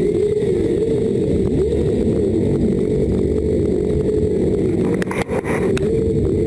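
Motorcycle engines idling and being revved close by, the pitch rising and falling again and again as throttles are blipped.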